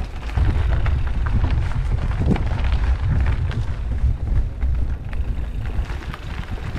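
Steady low wind rumble buffeting an action camera's microphone while riding a mountain bike along a dirt and stone singletrack, with scattered small clicks and rattles from the bike and trail.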